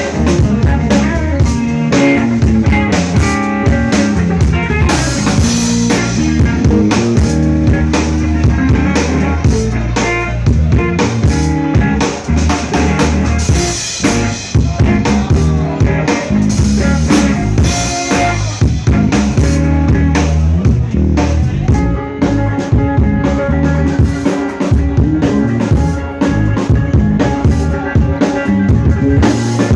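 A live blues band playing: a drum kit keeping a steady beat under an amplified electric guitar.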